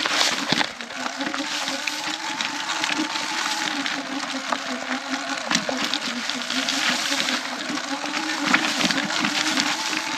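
Sur Ron X electric dirt bike riding along a dirt trail: a steady whine from the electric motor and drivetrain that wavers with speed, over a constant rush of tyre and trail noise with scattered sharp crackles and clicks.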